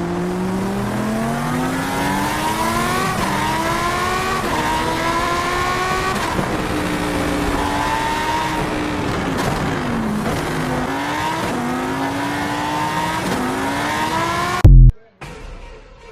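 A car engine accelerating hard through the gears: its pitch climbs and drops back at each shift, eases off midway, then climbs again. A very loud short burst near the end is followed by an abrupt cut-off.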